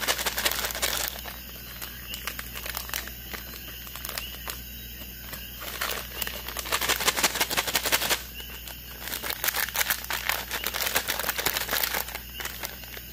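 Plastic M&M's candy bag crinkling as a hand rummages inside it for a candy, in several bursts with short lulls between.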